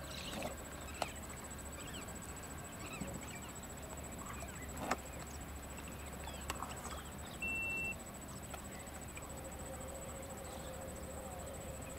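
Quiet pondside outdoor ambience: a thin steady high tone and low hum under faint scattered chirps and a few soft clicks, with a short steady whistle about halfway through.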